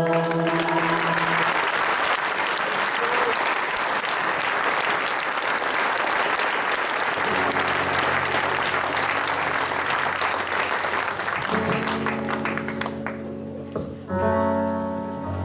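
Audience applause, a dense clapping that fades out about 13 seconds in. It starts as a choir's last held chord ends, and an acoustic guitar starts strumming near the end.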